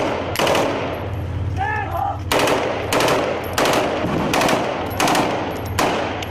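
Gunfire in an armed clash: about a dozen sharp single shots in quick, irregular succession, with a pause of about a second and a half a second in.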